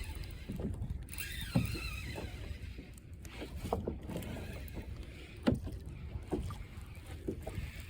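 Water sloshing and lapping against a small boat, with a low wind rumble and scattered knocks, two of them louder. A brief wavering high-pitched sound comes about a second in.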